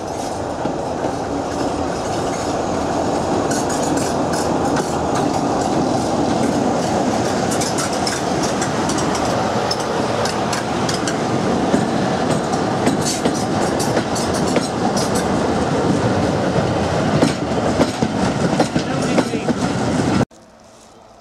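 Class 45 'Peak' diesel locomotive's Sulzer twin-bank 12-cylinder engine running under power, getting louder as it passes close alongside. Then its coaches go by with a clatter of wheels over rail joints, heard from an open window of a moving train. The sound cuts off abruptly near the end.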